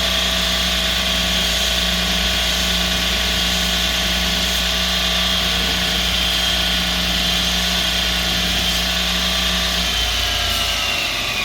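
MultiTool belt grinder/sander running steadily with a 3M polishing belt, used for rouge polishing of steel. About ten seconds in, its pitch starts falling as the machine winds down.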